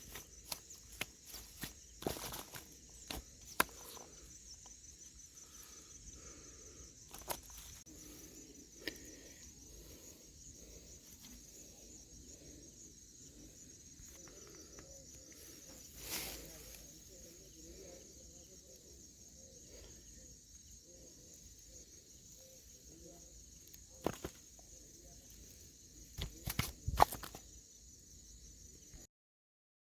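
A steady high trill of insects, with scattered sharp clicks and knocks. The sound cuts off suddenly near the end.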